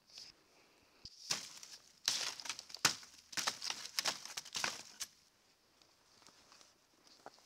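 Footsteps and brushing through dry twigs, branches and forest litter: a dense run of crackling and snapping from about one to five seconds in, then quieter steps.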